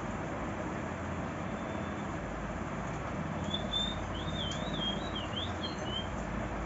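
Pet parakeet giving a short, warbling whistle that wavers up and down, starting about halfway through, over a steady background hiss.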